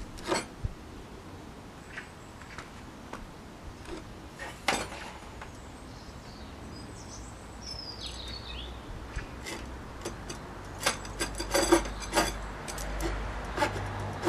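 Scattered light clinks and knocks of metal on wood as threaded rods and wing-nuts are fitted to the wooden rail supports of a chainsaw mill frame, with a quick run of clicks about three-quarters of the way through. A bird chirps briefly midway.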